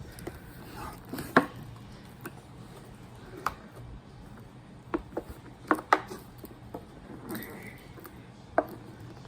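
Small scissors snipping at a doll's cardboard and plastic box packaging: a few sharp, irregular snips and clicks, two close together about six seconds in.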